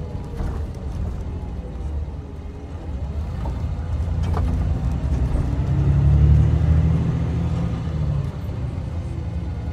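Coach engine and road noise heard from inside the passenger cabin while driving, a low rumble that swells about halfway through and eases off again near the end.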